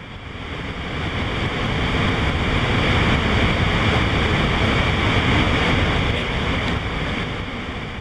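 Steady rushing roar of the water plunging over Victoria Falls, swelling in over the first seconds and easing off toward the end.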